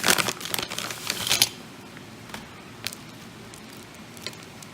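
Packaging crinkling and rustling as it is handled and opened, with a dense patch of crackles for about the first second and a half, then a few light clicks.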